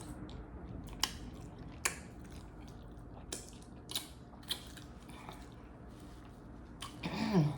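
Close-miked chewing, with wet mouth smacks and several sharp clicks scattered through. A short voiced sound falls in pitch near the end.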